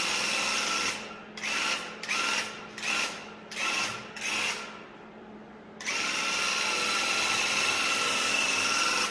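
Battery-powered Graco handheld airless paint sprayer's pump motor buzzing as it sprays paint: a steady run, then about five short trigger pulls in quick succession, a pause of about a second, and a steady run again.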